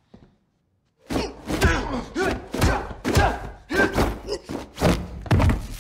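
Movie fight sound effects: a quick run of punches and blocks landing as sharp thuds and smacks, starting about a second in after a brief silence.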